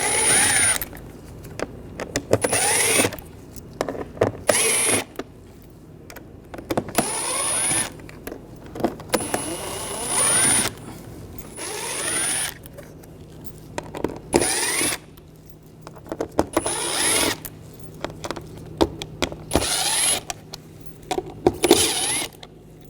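Ratchet with a T20 socket backing out Torx screws from a car door panel, clicking in repeated bursts of about a second with short pauses between.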